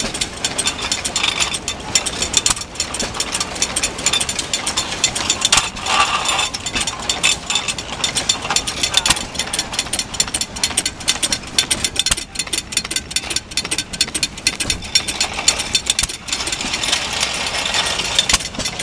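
Antique belt-driven cast-iron feed mill grinding corn kernels: a dense, rapid, irregular clattering of grain and metal. The small stationary gas engine driving it by a flat belt runs underneath.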